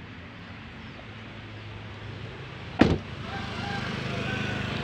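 A car door, the Honda Freed's front door, shutting with a single thud about three seconds in, over a steady street hum.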